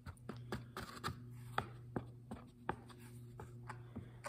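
A piece of cardboard scraping thinned glue across a small plywood panel in short, irregular strokes, faint, over a steady low hum.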